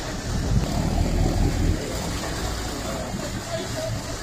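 Water taxi's engines running at low speed as it comes alongside, a deep rumble that eases a little under two seconds in, over wind and water noise.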